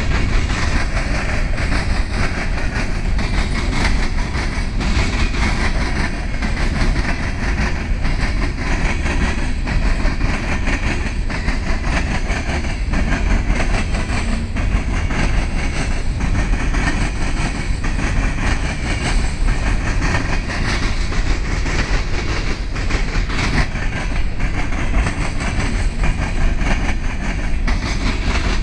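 Loaded-style CSX coal train of open-top hopper cars rolling past close by: a loud, steady rumble of steel wheels with a continuous rapid clatter as the trucks pass over rail joints and the track crossing.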